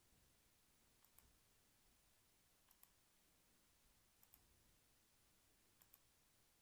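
Near silence broken by four faint pairs of computer mouse clicks, about one and a half seconds apart.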